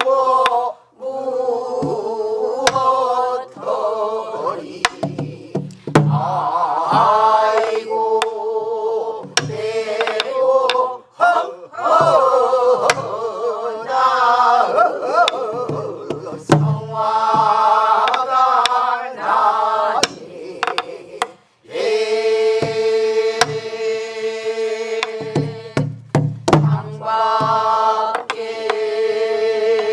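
A group of voices sings a Korean Namdo folk song in unison, with long wavering held notes. They are accompanied by sparse strokes on buk barrel drums.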